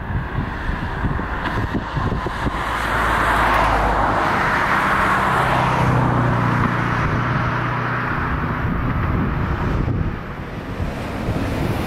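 A road vehicle passing close by, its noise swelling a few seconds in and easing off near the end, with wind on the microphone.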